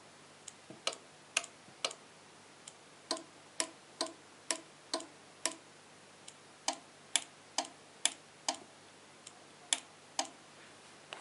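Relays inside 433 MHz radio-controlled mains sockets clicking as they switch on and off. About twenty sharp clicks come at an uneven pace of roughly two a second.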